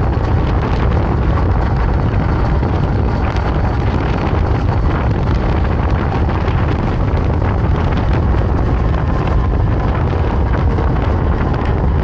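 Steady, heavy wind rush on the microphone of an electric scooter ridden at about 75 km/h, a low rumble that never lets up.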